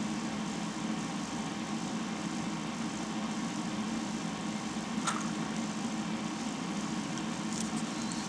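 Steady low background hum, with a single sharp click about five seconds in and a few faint ticks near the end.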